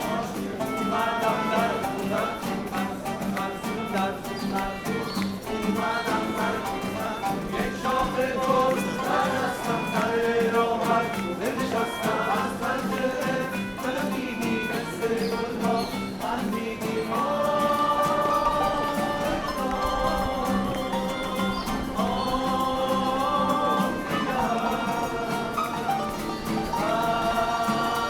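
Street musicians playing live music, with held melodic notes over a steady low drone and some singing.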